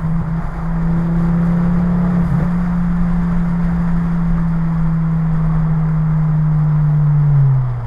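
Ford Focus ST 225 Mk2's turbocharged 2.5-litre five-cylinder engine and exhaust holding a steady drone at motorway cruising speed, heard inside the cabin over tyre and road rumble. Near the end the pitch falls as the car slows.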